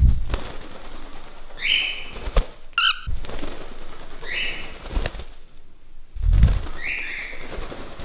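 Pet parrot calling indoors: three short, similar rising chirps spaced a few seconds apart, plus a brief warbling call about three seconds in. Bursts of wing flapping at the start and again about six seconds in.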